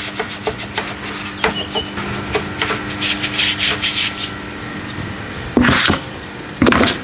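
Rhythmic scrubbing, something rubbing back and forth on a surface at about three to four strokes a second, with two louder, longer strokes near the end, over a steady low hum.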